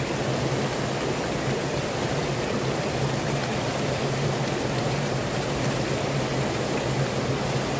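Steady rush of flowing water from a small mountain stream and waterfall, even and unbroken.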